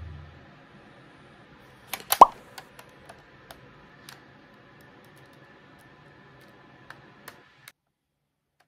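A short, loud comic 'pop' sound effect about two seconds in, its pitch dropping quickly. Around it are scattered small clicks and taps from hands handling a plastic toy.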